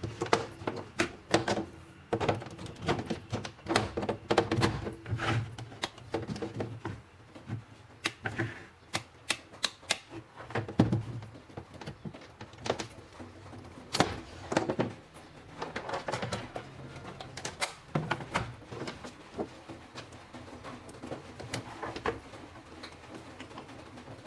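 Irregular clicks, taps and knocks of small hard parts being handled, quick and close together at first and thinning out near the end.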